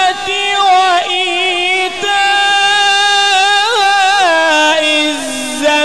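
Male Qur'an reciter's voice in melodic tilawat, holding long drawn-out notes with wavering ornamental trills. The pitch sinks lower near the end, with only short breaths between phrases.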